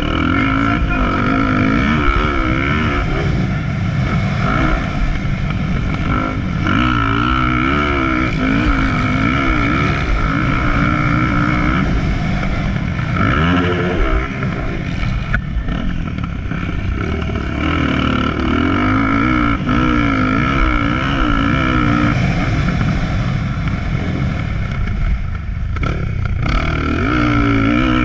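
Motocross dirt bike engine heard from the bike itself as it is ridden round the track, its pitch rising and falling over and over as the throttle is worked and gears change, with wind and rushing noise over it.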